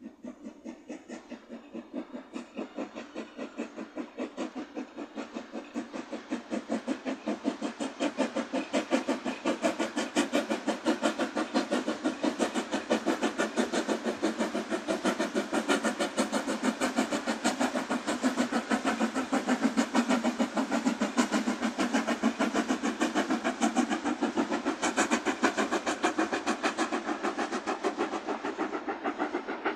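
Steam locomotive hauling a passenger train, its exhaust chuffing in a fast, even rhythm that grows louder over the first several seconds and then holds steady.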